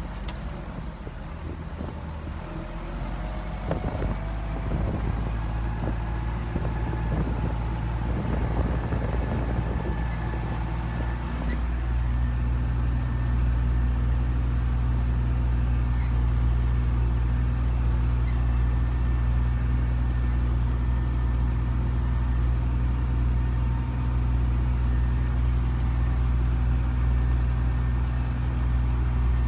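Belarus MTZ 820 tractor's four-cylinder diesel engine running under load while pulling a disc plough through the soil. Irregular clatter sounds over the engine for roughly the first ten seconds, then the engine settles into a steady drone that grows louder about twelve seconds in.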